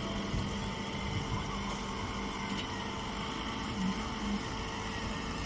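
Steady machine hum with a continuous low tone and fainter higher tones over an even noise, briefly louder twice a little under four seconds in.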